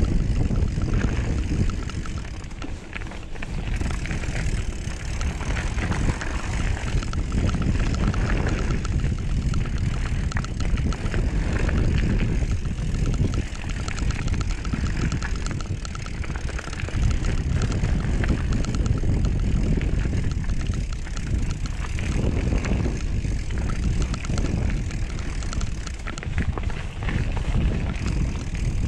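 Wind rushing over the microphone and the rumble of a mountain bike rolling down a dirt trail. The rush swells and dips with speed, with a brief drop about three seconds in.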